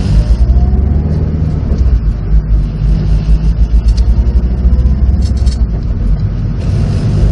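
Subaru WRX STI's EJ20 flat-four engine and road noise while driving, heard from inside the cabin as a steady, pulsing low rumble.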